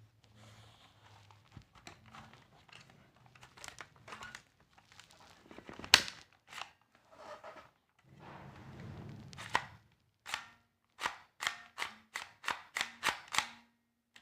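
Handling noises from a JP-5 gun: small clicks and rustles, one loud sharp snap about six seconds in, then a quick run of about nine sharp clicks near the end, some with a faint metallic ring.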